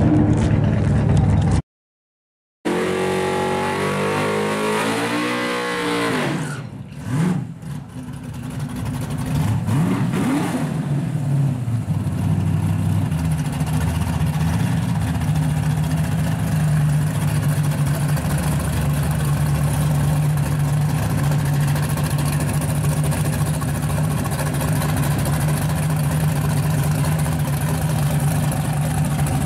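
Chevrolet Nova drag car's engine. There is a brief dead-silent gap about two seconds in. After it the engine's pitch swings up and down with a few rising revs over the next several seconds, then it settles into a steady idle.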